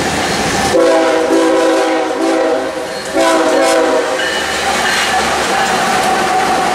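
Diesel freight locomotive's multi-note air horn sounding a long blast about a second in and a shorter one just after three seconds. The train keeps rumbling as its lead locomotives pass close by, with steel wheels running on the rails.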